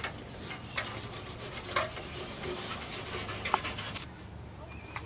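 An abrasive scuff pad is rubbed back and forth along the inner edge of a new Jeep Wrangler YJ windshield frame, scuffing the surface so the urethane adhesive will bond. The rough scraping stops about four seconds in.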